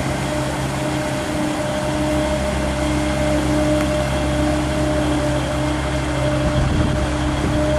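Engine and hydraulic drive of a Kennes weed-mowing boat running steadily: a constant low engine drone with a steady hum over it.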